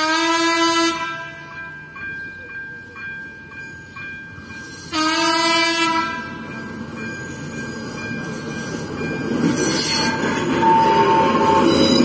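Diesel locomotive horn sounding two blasts, each about a second long and about five seconds apart, over the regular ticking of a level-crossing warning bell. Then the locomotive's engine and wheels grow louder as it rolls onto the crossing with a vintage coach.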